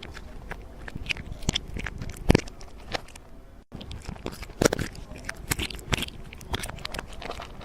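Irregular crunching and crackling, a dense run of sharp clicks and crunches, broken by a brief cut to silence about halfway.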